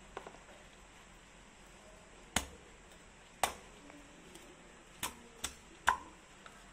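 Meat cleaver chopping through a thick steak of a large scaled fish onto a wooden chopping block: five sharp chops over about three and a half seconds, the last the loudest.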